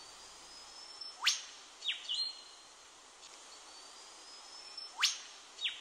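Eastern whipbird calling twice: each time a long, thin, slowly rising whistle ends in a sharp whip-crack, answered straight after by short notes from its mate. The cracks, about a second in and again near the end, are the loudest sounds.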